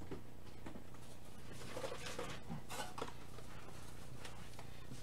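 Faint rustling and light taps of trading-card packs being handled, over a low steady hum.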